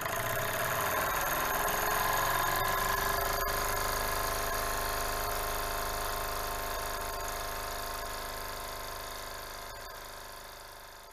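Jensen 75 toy steam engine running on steam once its flywheel is spun by hand: a fast, steady mechanical whirr with a ringing tone over it, getting gradually quieter toward the end.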